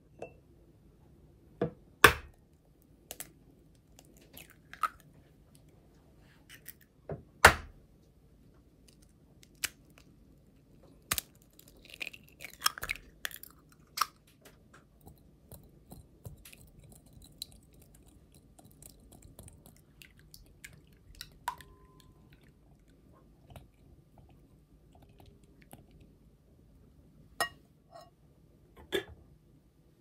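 Two eggs cracked and opened into a glass mixing bowl: a few sharp knocks, the loudest about two and seven seconds in, then scattered light clicks and taps as the eggs are beaten with a silicone whisk in the bowl.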